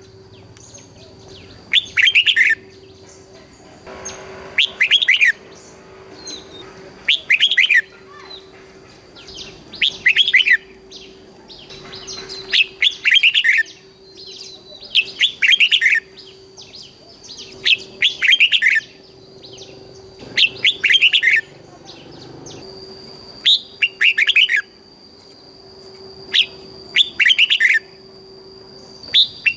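Red-whiskered bulbul singing loud, short whistled phrases, about one every two and a half seconds, many of them doubled in the style Thai bulbul keepers call 'berl'. A faint steady hum runs underneath.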